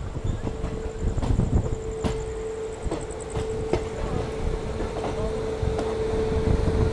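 Passenger train coach rolling slowly into a station: a low rumble with scattered clicks and knocks from the wheels and running gear, under a steady hum.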